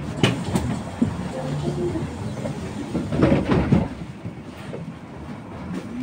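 Roadside street ambience: traffic noise with a few sharp clicks, and a louder rush of noise about three seconds in.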